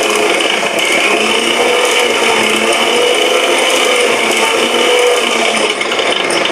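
Electric mixer grinder running at speed, blending a chocolate milkshake in its jar: a steady motor whine whose pitch wavers slightly.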